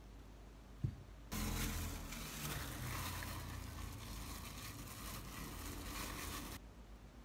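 A clear plastic bag rustling and crinkling as hands work it inside a pot. It starts abruptly just over a second in and stops abruptly near the end, after one brief knock.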